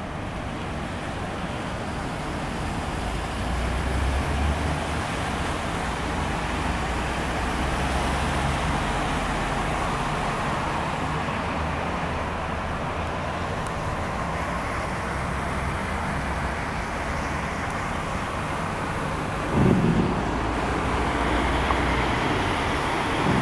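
Heavy rain downpour hissing steadily, with low rumbling and cars passing on the wet street. A sudden loud thump comes a few seconds before the end.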